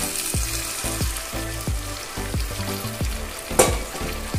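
A pan of oily fish-head curry sizzling and bubbling hard as hot water goes into the hot masala. A single sharp clink comes about three and a half seconds in.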